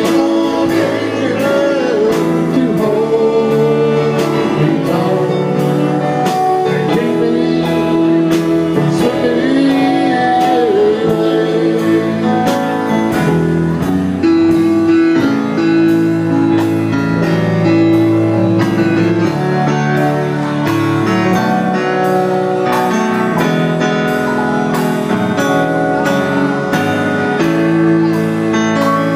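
Live amplified band playing: a man singing over electric guitar, bass, drums and keyboard, with a steady drum beat. About twelve seconds in the singing stops and the band plays on with held keyboard notes prominent.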